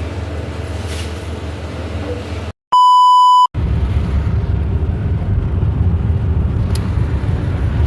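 Steady low rumble of road noise inside a moving vehicle, broken about two and a half seconds in by a pure, loud beep lasting under a second, set in dead silence on either side like an editing bleep; then the rumble resumes, slightly louder.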